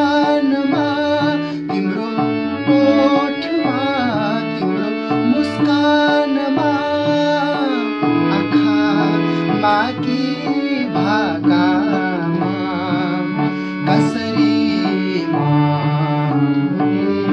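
A man singing to harmonium accompaniment, the melody full of quick ornamental turns over a steady held drone.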